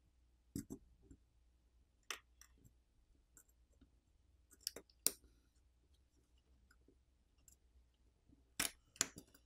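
Faint, scattered clicks and ticks of a plastic pry pick working a phone's subboard loose from its midframe, plastic and metal parts snapping and tapping, the loudest about five seconds in and a cluster near the end.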